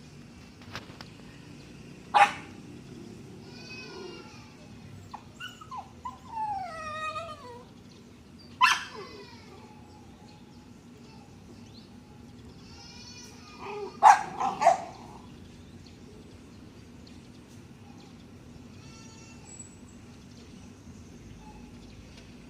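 A dog barking now and then: a sharp bark about two seconds in, another near nine seconds, and a quick run of three about fourteen seconds in. High whines and a falling whimper come between the barks.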